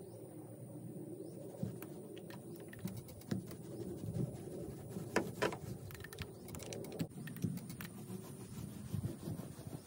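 Small paint roller rolling gel coat onto a fiberglass boat hull, with irregular light clicks and taps throughout and a sharper pair about five seconds in.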